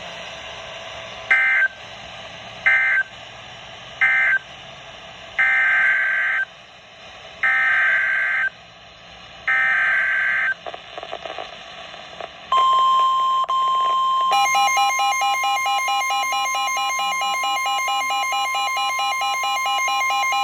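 Emergency Alert System data bursts: three short buzzy bursts, the end-of-message code closing one severe thunderstorm warning, then three longer bursts, the header of the next warning. About twelve seconds in, a steady high alert tone starts, and a couple of seconds later a fast-pulsing warbling alert tone joins it, the two sounding together.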